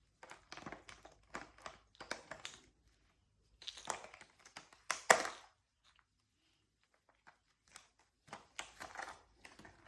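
Paper and plastic gift packaging rustling and crinkling in irregular bursts as it is handled and unwrapped, with a louder crinkle about five seconds in and a short pause after it.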